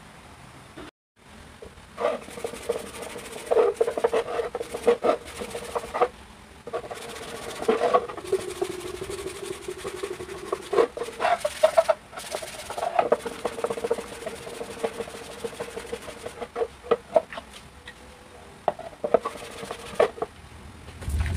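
Wet hand-sanding with 220-grit sandpaper on a sanding block, scrubbed back and forth over a resin-coated carbon-fibre mirror cover in soapy water. The strokes are irregular and start about two seconds in.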